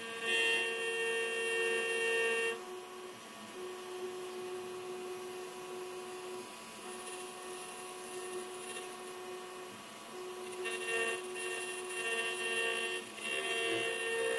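Mini four-axis CNC router's 800 W spindle milling an aluminium cylinder held in the rotary-axis chuck: a steady whine with several pitches at once. It is louder and fuller for the first two and a half seconds, drops back, and swells again in a few stretches near the end.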